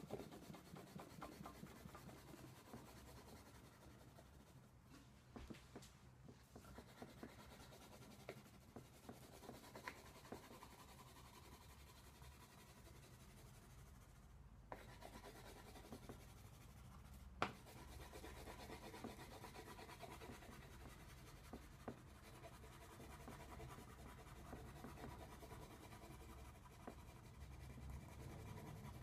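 Wax crayon rubbing back and forth on paper as a drawing is coloured in: a faint, steady scratching. One sharp tap stands out a little past the middle.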